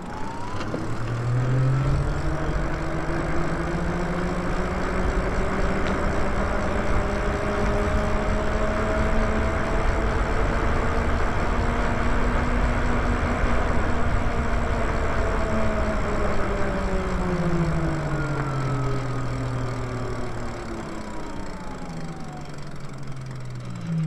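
Lyric Graffiti ebike's electric motor whining as the bike speeds up over the first couple of seconds, holding a steady pitch at cruising speed, then dropping in pitch over the last several seconds as it slows. Wind and tyre noise rise and ease with the speed.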